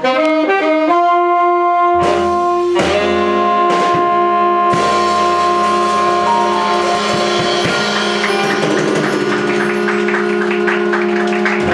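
Jazz band closing the tune: after a quick run of notes, the horns hold a long final chord while the drums hit a few accents and then a rapid cymbal roll runs under the sustained chord.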